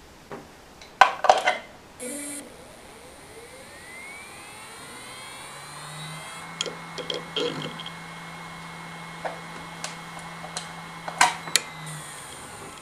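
A few loud clicks, then a Western Digital Raptor WD740GD 10,000 RPM hard drive spins up with a rising whine. It settles to a steady hum and whine at full speed with scattered head-seek ticks. Near the end come a few loud clicks, the hum stops and the drive starts to spin down with a falling whine.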